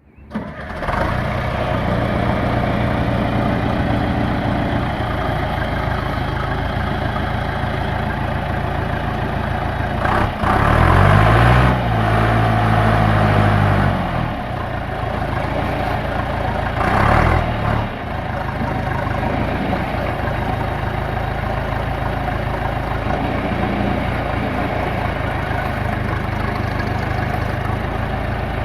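John Deere 310A loader backhoe's diesel engine idling steadily, revved up twice: once about ten seconds in for a few seconds, and again briefly a few seconds later, each time settling back to idle.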